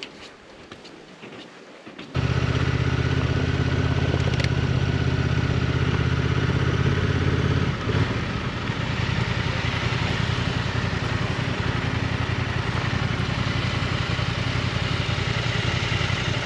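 Adventure motorcycle's engine running steadily at low speed, starting suddenly about two seconds in; after a brief dip about eight seconds in, it settles to idle as the bike comes to a stop.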